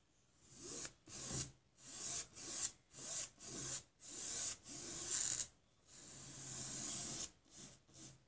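Flat paintbrush loaded with paint scrubbing back and forth across a stretched canvas: a rasping stroke about twice a second, one longer stroke about six seconds in, then shorter, quicker strokes near the end.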